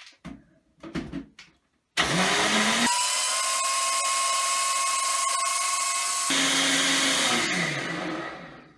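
Personal blender crushing ice and strawberries in apple juice. A few clicks as the cup is seated on the base, then the motor starts suddenly about two seconds in with a loud, steady whine that rises slightly in pitch. It runs for about six seconds and winds down near the end.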